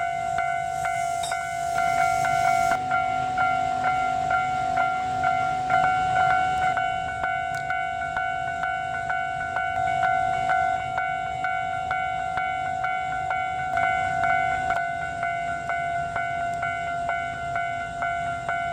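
Japanese railway level-crossing alarm ringing with rapid, evenly spaced electronic dings. A hiss sounds during the first few seconds.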